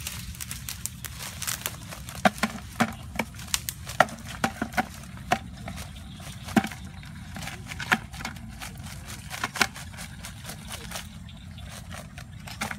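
Irregular sharp clicks and clatters of live crabs rattling inside a wire-mesh crab trap as it is shaken and tipped over a plastic bucket, the crabs dropping into the bucket. A steady low rumble runs underneath.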